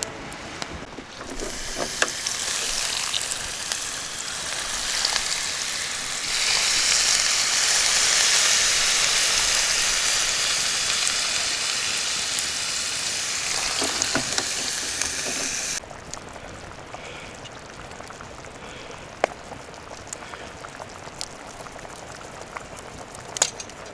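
Food frying and sizzling in a pan over a campfire. The sizzle grows louder partway through, then cuts off abruptly about two-thirds of the way in, leaving a quieter stretch with scattered small crackles and ticks.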